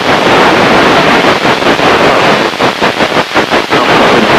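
Loud, steady radio static hiss with no voice on it, fluttering unevenly for about a second past the middle.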